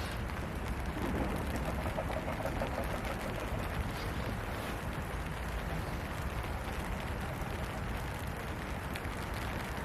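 Steady rain falling, an even dense hiss, with a faint pitched sound about a second in that lasts a couple of seconds.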